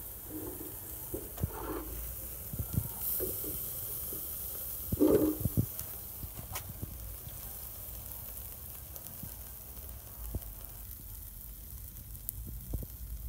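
Chicken sizzling over a charcoal fire in a wire grill basket, with scattered small crackles and a brief louder bump about five seconds in.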